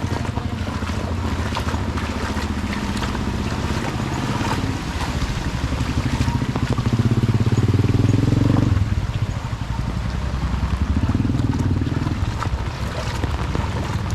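A motor vehicle's engine running, building up from about five seconds in and dropping off sharply near nine seconds, then building again briefly near the end.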